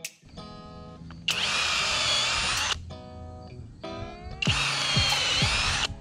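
Cordless driver running twice, about a second and a half each time, driving lag bolts through the metal pier brackets into pressure-treated 4x6 beams. Background guitar music plays between the runs.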